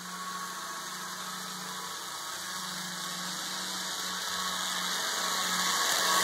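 Two HO-scale DCC model locomotives running at full throttle on parallel tracks: a steady electric-motor hum with the rush of wheels on rail, getting steadily louder as they approach.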